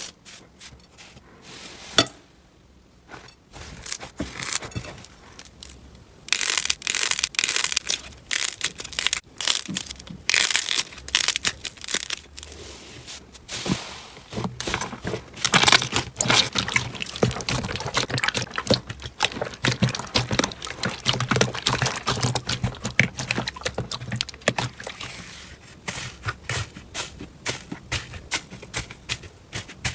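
Slime being squeezed and pressed by hand, giving many irregular small crackles and pops. It is quieter for the first few seconds, then busier.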